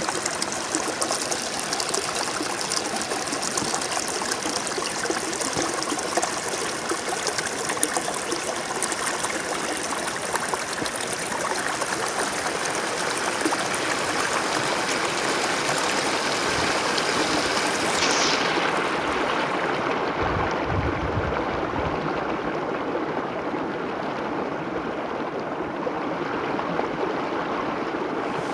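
Shallow rocky stream rushing and splashing between boulders, a steady noise of running water.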